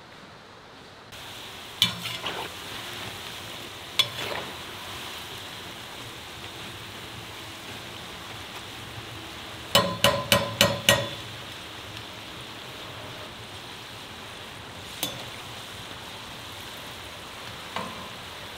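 Potato fries deep-frying in hot oil in a kazan: a steady sizzle that begins about a second in. A metal utensil clinks against the kazan several times: once or twice early on, a quick run of five about halfway through, then two single clinks later.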